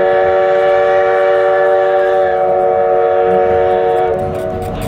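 Train horn sounding one long, loud, steady multi-note chord that cuts off about four seconds in.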